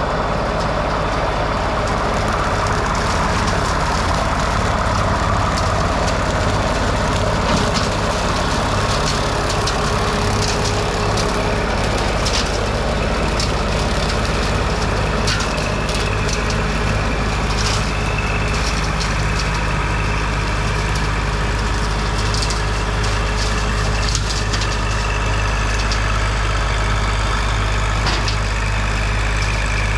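Kubota L2502 compact tractor's three-cylinder diesel engine running steadily, with scattered sharp cracks throughout.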